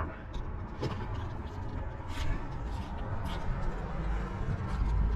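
Outdoor background noise with a low rumble that swells near the end, and a few faint clicks about one, two and three seconds in.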